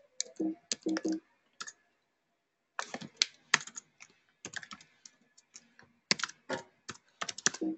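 Typing on a computer keyboard: rapid key clicks in irregular bursts, with a pause of about a second around two seconds in.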